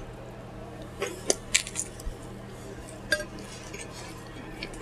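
A few short, light clicks and clinks, a cluster about a second in and one more near three seconds, over a faint steady hum.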